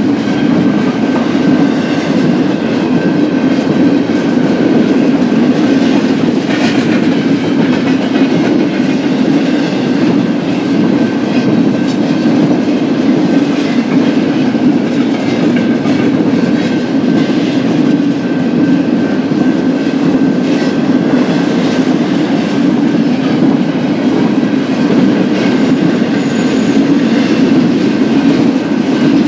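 BNSF intermodal stack train's cars rolling steadily past on the rails, a loud continuous rumble of wheels on track with occasional clicks and a faint, steady high whine above it.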